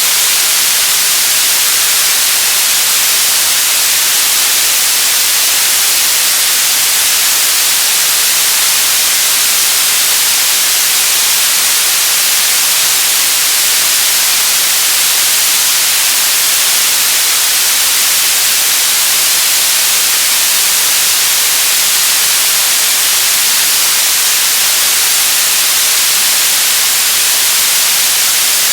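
Television static: a steady, loud, even hiss strongest in the highs, with no change throughout.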